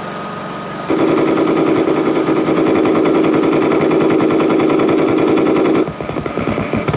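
Belt-fed machine gun firing one long, rapid burst of about five seconds, starting about a second in, then a few more scattered shots near the end, heard on an old film soundtrack.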